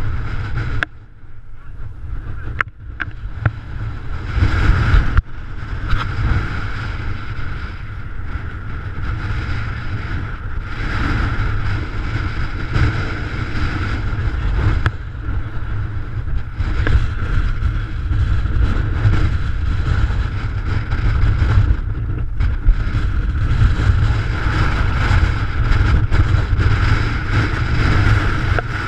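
Strong gusting wind buffeting the microphone, a loud, continuous low rumble that swells and drops with the gusts, with a few sharp knocks of the camera being handled.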